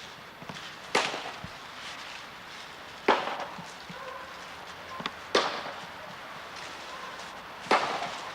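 Axe blows chopping into a fallen oak branch: four sharp strikes about two seconds apart.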